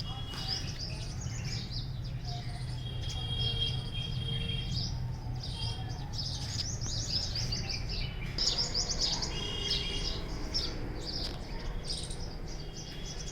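Small birds chirping and twittering in repeated quick bursts, with short high whistled notes between them, over a steady low rumble.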